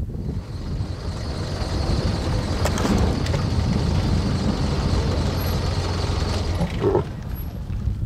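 Safari game-drive vehicle driving, its engine giving a steady low rumble that drops back about seven seconds in.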